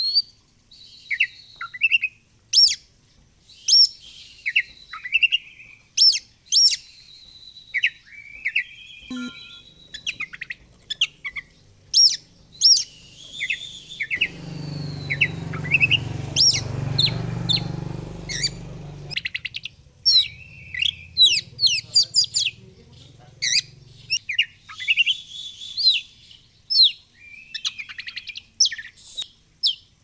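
Oriental magpie-robin (kacer) singing a fast, varied song of sharp chirps, whistles and short trills. A low rumble rises in the middle for about five seconds.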